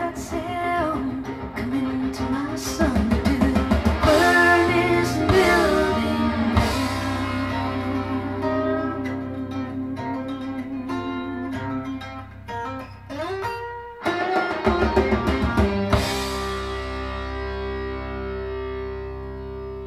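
A vinyl record playing on a Lenco L75 turntable through a 6L6 tube amplifier and Tannoy Precision 6.2 loudspeakers: an instrumental stretch of a song with plucked guitar and drums, with a sliding note about 13 seconds in, dying away near the end.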